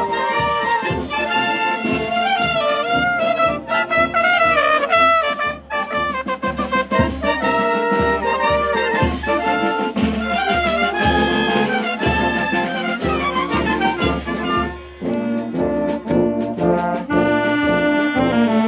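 Live wind band playing a march: clarinets, saxophones, trumpets, tubas and horns in a melody over a steady drum and cymbal beat, with a short break about fifteen seconds in before the next phrase.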